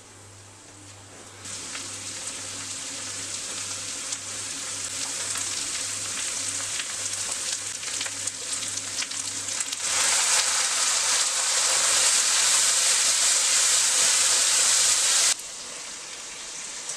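Onions and ground spices frying in hot oil in a wok: a steady sizzle and crackle that starts about a second and a half in, gets louder about ten seconds in, and drops off sharply near the end.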